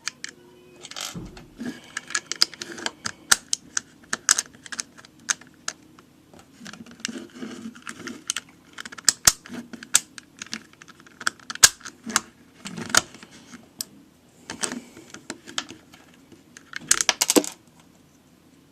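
Irregular sharp clicks and clacks of a LanLan Rex Cube's plastic pieces being handled, popped out and pressed back in during partial disassembly for lubrication, with a quick flurry of clicks near the end.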